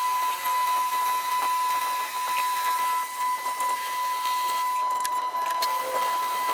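A machine running steadily: a constant high whine over a continuous hiss, with a few faint ticks.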